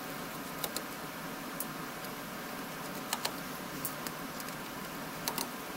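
Several light, sharp clicks and taps, some in quick pairs, from hands handling a mini PC's open chassis and motherboard during disassembly, over a steady background hiss.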